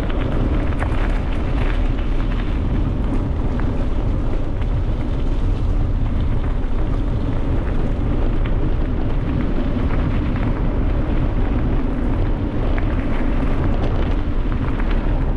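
Wind rumbling steadily on the camera's microphone while riding a bicycle along an asphalt road, with a few faint clicks.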